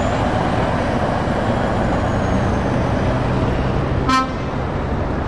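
Volvo FH tractor unit with a curtainside trailer driving slowly past, its diesel engine running steadily. A single short horn toot about four seconds in.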